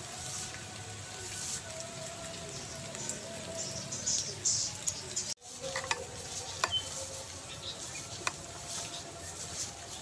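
Light rain pattering on leaves: a steady hiss with scattered small ticks. It breaks off for an instant about halfway through.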